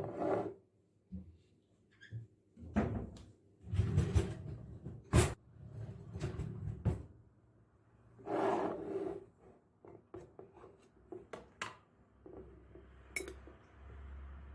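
A series of irregular knocks, clicks and clatters as household objects are handled and set down, with a low steady hum starting near the end.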